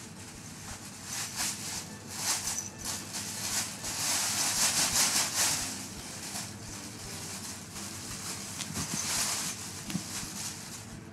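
Rustling and scuffling of a cat playing with a feather cat-teaser wand, its paws scrambling and pouncing on a floor mat, coming in several spells and loudest about four to five seconds in.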